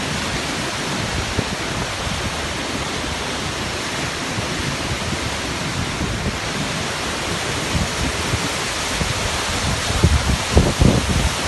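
Floodwater of a desert flash flood rushing down a stream bed in a steady, loud roar of water. A few low thumps come near the end.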